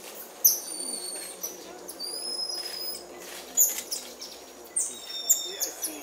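High-pitched calls of small monkeys, golden lion tamarins and marmosets. Sharp chirps sweep downward several times, mixed with a few thin whistles, each held on one pitch for about half a second.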